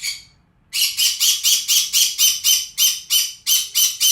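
Pet parrot screeching in a fast run of harsh, evenly spaced squawks, about five a second, after a brief pause near the start. It is the attention-seeking screaming that the owner says it keeps up all day.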